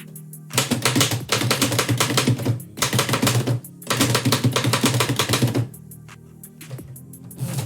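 A 1918 Oliver typewriter typing in quick runs of keystrokes, with short breaks between runs and only a few strokes near the end. Background music plays underneath.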